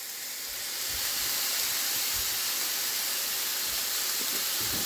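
Ground beef sizzling in a hot cast iron skillet as Worcestershire sauce is added: a steady hiss that builds over the first second and then holds level.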